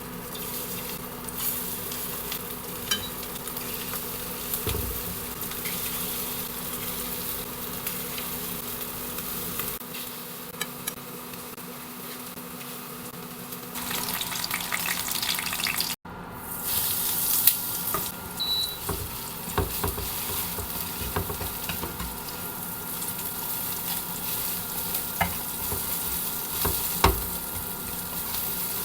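Batter-coated food frying in hot oil in a pan, with a steady sizzle and occasional sharp clicks and pops. The sound cuts out briefly about halfway and comes back louder.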